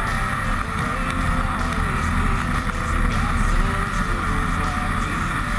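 Snowmobile engine running steadily under way, a continuous drone mixed with rushing noise.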